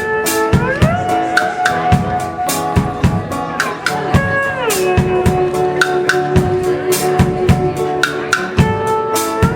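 A live band playing a song: a drum kit keeps a steady beat under sustained guitar notes that slide from one pitch to the next.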